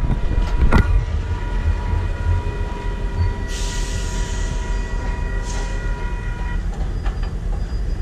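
Diesel locomotive running during switching: a steady low rumble with a knock just under a second in. A steady high tone runs under it and stops about six and a half seconds in, and a hiss lasting about a second comes near the middle.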